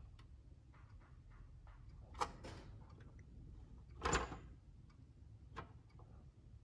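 Faint handling noise from fingers pressing broken plastic pieces together, with two short clicks about two and four seconds in and a fainter one later.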